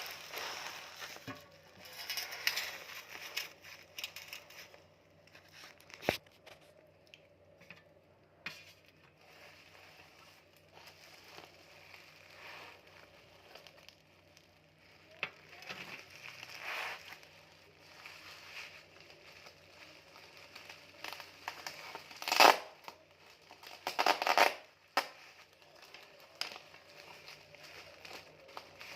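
Parcel packaging being handled and opened: irregular crinkling and tearing of wrapping, with scattered clicks and two louder rips about three quarters of the way through.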